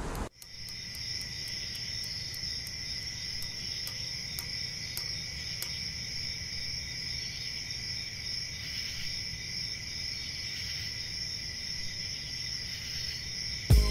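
Steady chorus of crickets and other night insects, an even high-pitched trill. Near the end a sudden loud, low thump cuts in.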